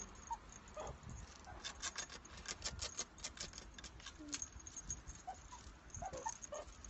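Meerkats giving short, soft peeping calls, a few near the start and several more towards the end, with a quick run of light clicks and patter on the concrete in the middle.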